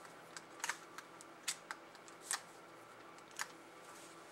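Faint, irregular clicks and light scrapes of multimeter test probes and leads being handled and moved between the slots of a twist-lock receptacle, about seven clicks in the first three and a half seconds.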